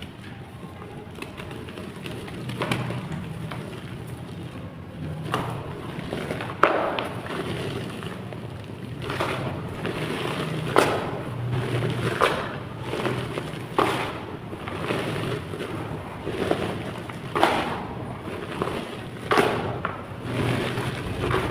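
Blocks of chalk clay being crushed and crumbled: a series of sharp crunching cracks, roughly one every second or two, starting a few seconds in, with gritty crumbling between them.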